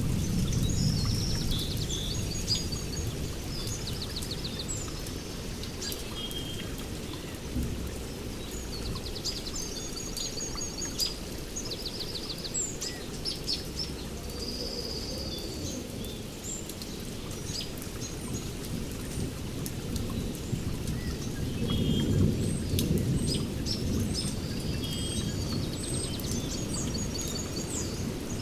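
Rain falling steadily, with a low roll of thunder that swells at the start and again about three-quarters through. Birds chirp and trill throughout.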